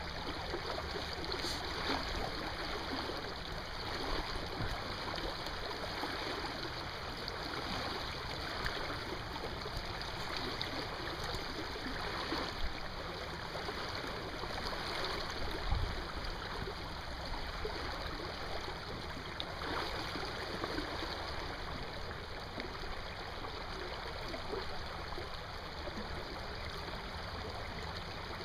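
River water flowing steadily, with a few faint knocks and one low thump about halfway through.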